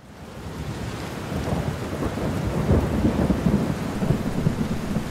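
A thunderstorm: rain falling with low, rolling thunder rumbling, fading in over the first couple of seconds.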